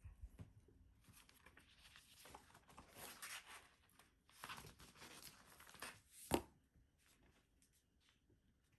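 Faint rustling of a paper assembly instruction sheet being unfolded and smoothed out by hand, with one sharper, louder rustle a little past six seconds.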